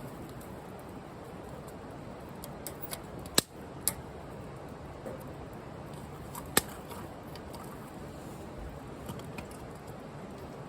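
Firewood burning in a wood-fired grill: a steady low hiss with scattered crackles and a few sharp pops, the two loudest a little over three seconds in and about six and a half seconds in.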